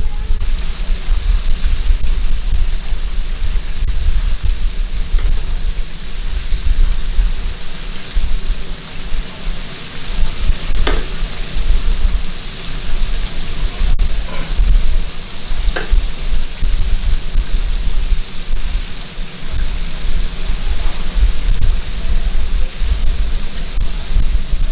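Battered pork ribs deep-frying in a steel fryer of hot oil, a steady sizzling and bubbling with a low rumble underneath.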